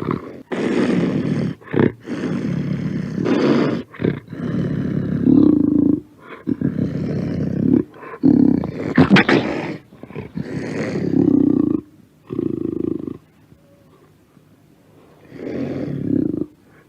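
Panther roaring: a run of about ten loud roars, each lasting a second or two with short breaks between them, then a pause of about two seconds before one more roar near the end.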